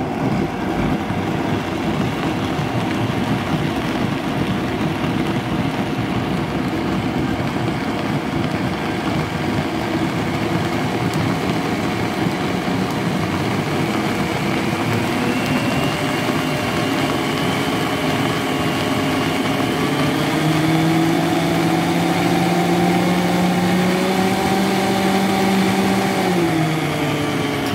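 Vitamix E310 blender motor running a green juice of leafy greens and apple, climbing in pitch in steps as the speed dial is turned up to 10. It winds down near the end as it is switched off.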